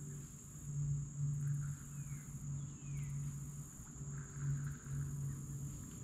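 Steady high-pitched insect drone over a low hum that pulses on and off. Two short falling whistles come about two to three seconds in.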